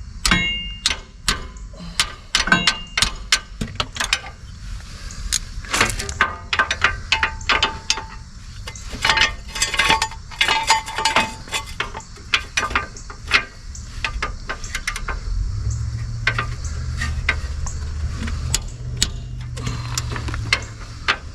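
Hand ratchet and socket clicking and clanking on a stuck rear brake caliper bolt that will not break loose, in many sharp, irregular clicks. A low steady hum joins in about fifteen seconds in.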